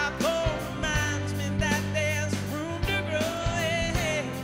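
Live pop-rock band playing, with a wavering sung melody over a sustained bass and drums.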